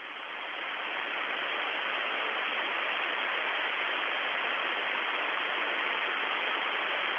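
Steady hiss of static on an open air-to-ground radio channel. It swells over the first second, then holds level.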